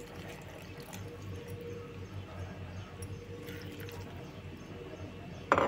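Water poured from a plastic bottle into a pressure cooker of chopped potatoes and onions: a faint trickle and drips. A short knock comes near the end.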